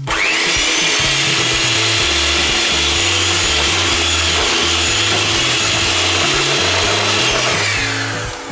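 Vitek electric hand mixer running, its beaters whisking egg and water in a plastic bowl: a loud, steady motor whine that starts at once and winds down with a falling pitch near the end.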